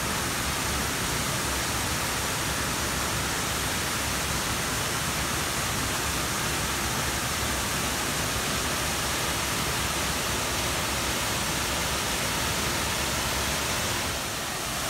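Steady rush of a small man-made waterfall pouring over rockwork, dipping slightly near the end.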